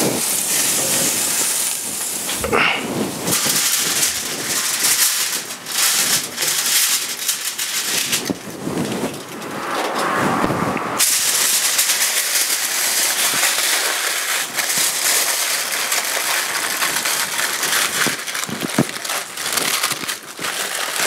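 Lamb leg sizzling and crackling on a hot gas grill as it comes off, then aluminium foil crinkling as the meat is wrapped.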